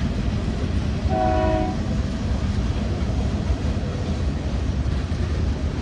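Diesel freight locomotives rumbling steadily past, with one short horn blast of several notes at once about a second in.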